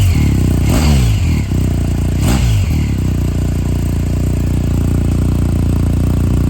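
BMW R1250RS's boxer twin running through an aftermarket LCI Parts performance exhaust, revved in short throttle blips in the first three seconds, each falling back quickly, then settling to a steady idle.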